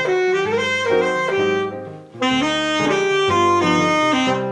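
Instrumental music: a solo wind-instrument melody with sliding notes over sustained low accompaniment, in two phrases with a short break about two seconds in, fading out near the end.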